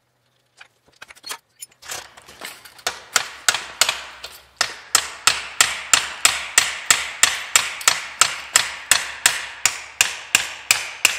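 Hammer blows on steel driving a stuck kingpin out of a 1930 Model A Ford's front axle and spindle, about three strikes a second, starting about two seconds in. The first blows are lighter; from about four seconds in they are harder, with a metallic ring.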